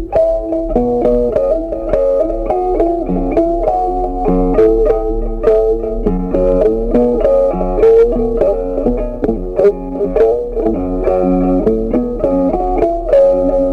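Background music of quick plucked notes forming a melody over lower notes.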